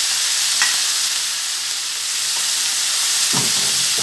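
Chopped onions, tomatoes and bell pepper sizzling steadily in hot frying oil, with a short click early and a brief thud about three seconds in.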